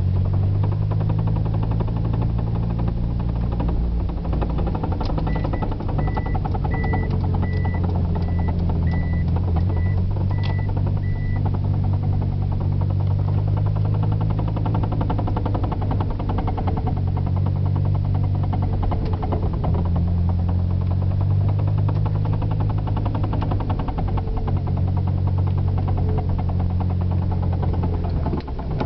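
A 1992 Eagle Talon TSi being driven: its turbocharged four-cylinder engine runs with pitch shifting as speed changes, over a fast knocking from the front of the car. A steady beeping repeats for several seconds near the start.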